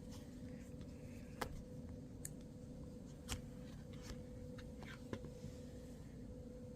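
Handling noise from unboxing a phone: a handful of sharp, separate clicks and taps, spaced about a second apart, over a low steady hum.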